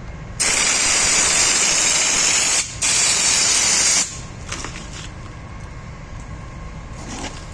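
Anti-chip (stone-guard) coating being sprayed onto a car's rocker panels: two loud bursts of spray hiss, a long one of about two seconds, a short break, then a shorter one of about a second.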